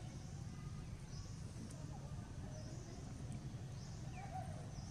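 Forest ambience: a steady low rumble, with a short high chirp repeating about every second and a half.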